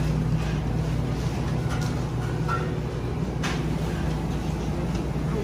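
Steady low mechanical hum of a bakery shop's room, with a few faint clicks and rustles.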